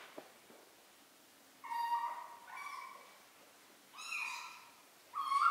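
Three-week-old kittens meowing: four short, high-pitched mews about a second apart, starting about a second and a half in, the last the loudest.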